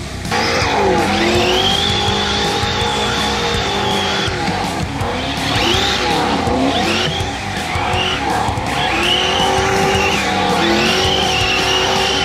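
Brushless electric drive of a Traxxas Slash 4x4 RC truck whining up and down in pitch as it is throttled, with its tyres scrabbling and sliding on loose dirt during donuts. Rock music plays underneath.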